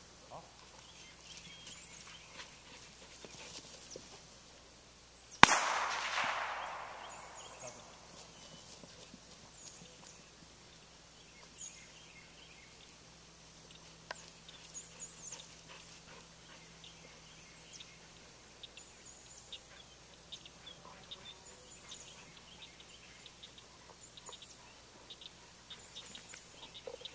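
A single gunshot about five seconds in, sharp and loud, with an echo that dies away over the next two seconds. Faint chirping carries on in the background.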